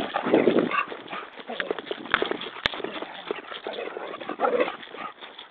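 Irregular footsteps and thumps on dry grass, with sharp clicks of handling noise on the microphone. There are two short voice-like sounds, one about half a second in and one near four and a half seconds in.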